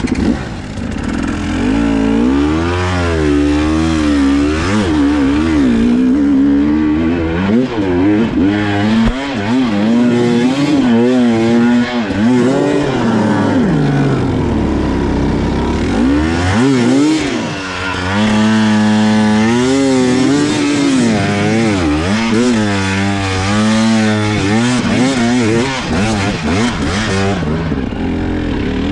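GasGas EC300 two-stroke enduro dirt bike engine revving up and down over and over, the throttle worked hard as the bike is pushed up a steep, muddy climb.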